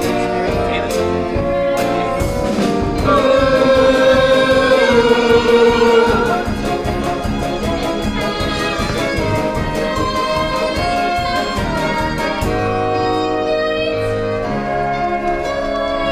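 Stage musical number: a woman sings with vibrato over a pit orchestra with brass and a steady beat, holding one long, loud note a few seconds in.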